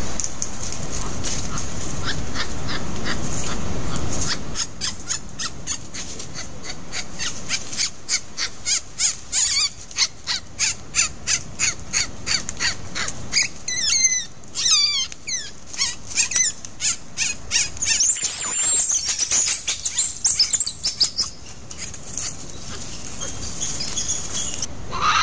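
A long run of sharp, evenly spaced ticks or knocks, about three a second, with bird chirps and a high call that rises and falls partway through.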